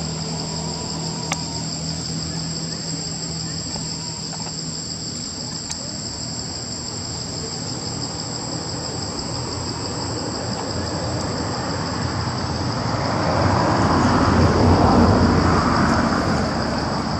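Chorus of insects buzzing steadily at a high pitch. From about two-thirds of the way through, a louder rushing noise swells up and dies away again.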